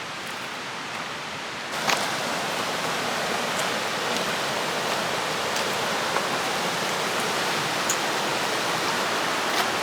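River rapids rushing, a steady roar of water that grows louder about two seconds in and then holds.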